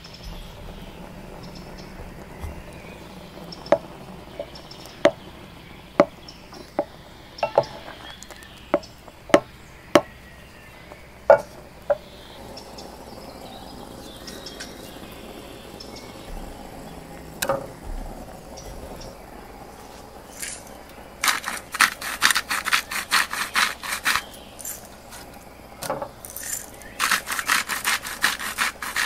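Coarse salt sprinkled over a raw elk steak on a wooden cutting board, the grains pattering onto meat and board in two spells of rapid ticking in the second half. Before that, scattered single sharp clicks come every second or so.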